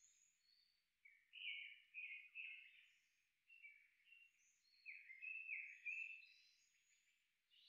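Faint woodland birdsong: a run of short, falling whistled notes, loudest through the middle, with higher chirps of other birds.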